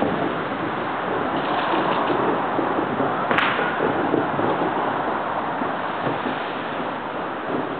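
Dense, continuous crackle of many firecrackers going off, with one sharper crack about three and a half seconds in.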